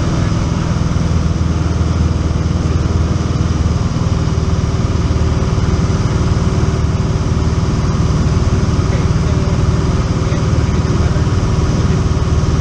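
Single-engine light airplane's piston engine and propeller droning steadily in flight, heard inside the cabin.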